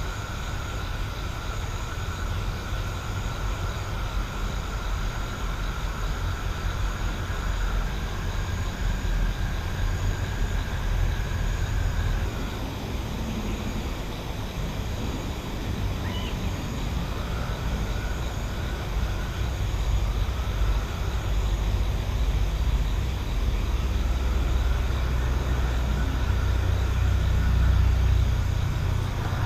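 Night-time countryside ambience: a steady low rumble that carries most of the sound, with faint high tones that fade in and out above it.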